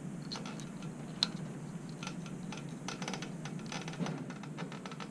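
Small irregular plastic clicks and rattles of electrical wires and wire connectors being handled and joined by hand in a fluorescent light fixture's ballast wiring. There is one sharper click about a second in, and the clicking grows busier around three to four seconds in.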